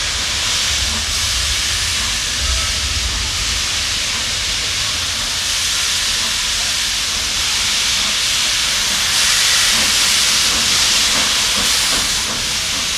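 Steam locomotive letting off steam: a loud, steady hiss that swells a little near the end.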